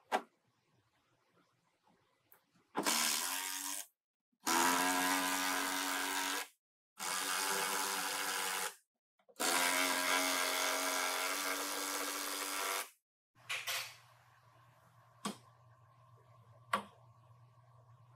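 Handheld power drill run in four bursts of one to three seconds against the car's rear body metal, the motor spinning up at the start of the first. After the last burst a quieter steady hum, with two sharp clicks.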